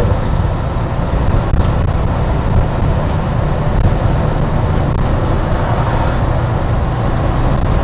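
Steady engine and road rumble heard inside the cab of a semi-truck driving on the highway.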